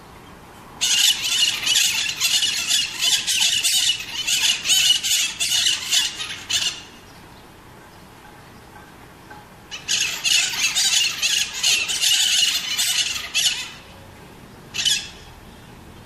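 Green parakeets (maritacas) screeching in rapid, harsh calls. A bout of nearly six seconds starts about a second in, then comes a pause. A second bout of about four seconds follows, with one short call near the end.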